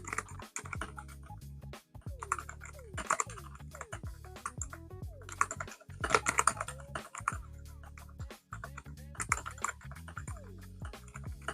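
Typing on a mechanical keyboard with silent switches and pudding keycaps: rapid, damped keystrokes in uneven flurries, busiest about six seconds in. Background music plays underneath.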